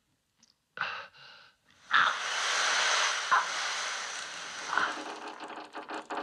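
A man in pain: a short gasp about a second in, then a long, strained, hissing cry forced out through the teeth for about three seconds, fading toward the end, as a torture machine is turned up on him.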